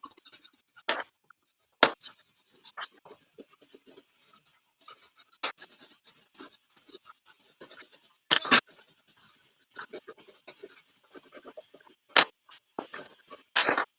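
Rapid scratchy strokes of a drawing tool on paper as a drawing is coloured in, with a few sharper taps in between.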